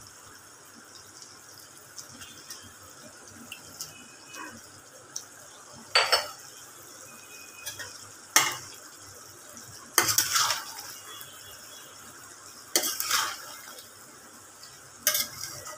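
Steel spoon and spatula clinking and scraping against a metal kadai as spice paste is added and chicken in thick gravy is stirred. There is a sharp clink every second or two.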